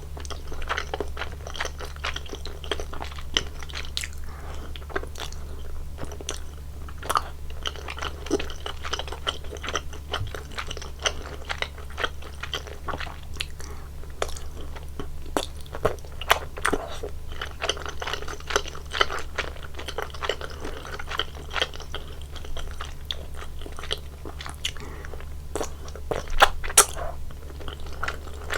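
Close-miked eating sounds of spicy soupy tteokbokki: irregular wet chewing, biting and mouth clicks, the loudest cluster near the end.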